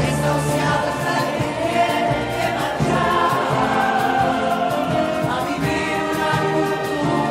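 A mixed choir singing together with several women's voices on microphones, a full, continuous sung chorus.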